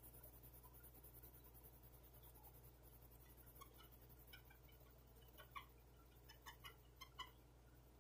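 Near silence: a faint low hum and a few soft, short ticks from about three and a half seconds in, as a shop towel rubs polishing compound by hand onto a resin pen blank on a stopped lathe.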